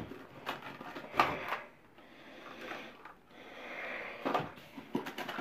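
Rummaging among small faucet repair parts and their packaging: a few light clicks and knocks, with soft rustling in between.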